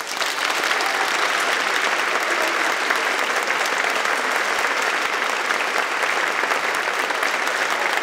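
Audience applauding steadily: dense, even clapping from many people.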